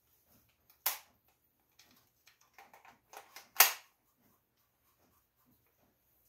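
Scattered sharp clicks and clinks of bolts and hand tools being handled while the rear-end cover is refitted, the two loudest about a second in and about three and a half seconds in.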